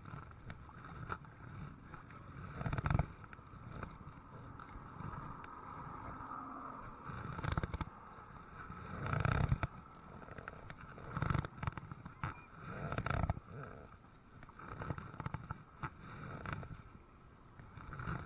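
Kayak being paddled on a river: paddle strokes in the water, a low rumbling surge about every two seconds.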